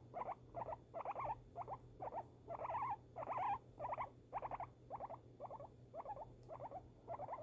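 Guinea pig calling in a steady run of short, pulsed calls, about three a second.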